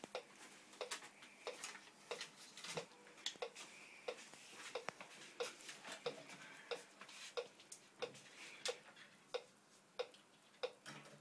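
A clock ticking faintly and evenly, about three ticks every two seconds.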